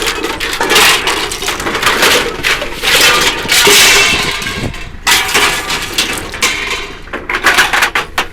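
Scrap metal being thrown down and unloaded onto a pile, a continuous clatter of metal pieces knocking and clanging against each other, with a brief let-up about five seconds in.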